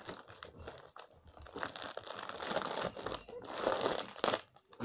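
A crinkly foil snack packet crumpling and rustling as it is bitten and tugged with the teeth to tear it open without hands. The rustling comes in irregular spells, loudest in the second half.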